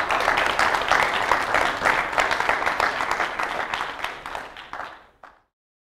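Audience applauding, a dense patter of many hands clapping that fades and cuts off about five seconds in.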